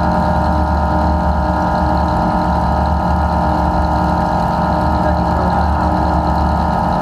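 Demolition derby car engine idling steadily, with no revving.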